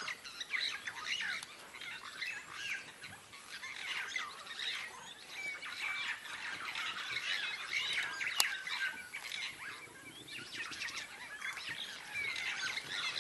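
Birds chirping and calling, many short overlapping chirps one after another, with one sharp click about eight seconds in.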